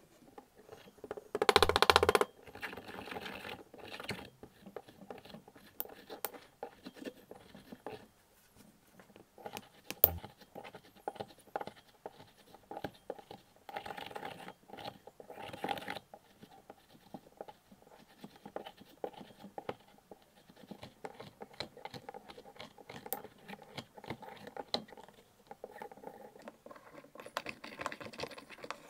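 Ceramic pestle crushing and grinding chunks of yellow pigment in a ceramic mortar: gritty scraping and crunching strokes. There is a louder crunch near the start and a single sharp knock about ten seconds in.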